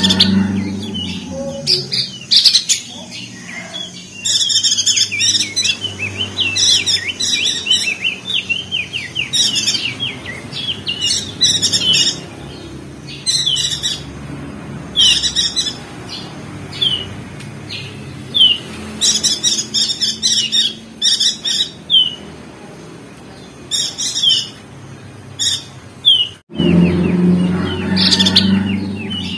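Perenjak daun (opior jambul) singing in short runs of rapid, high twittering chirps, repeated again and again, over a low hum. The song cuts out for an instant near the end.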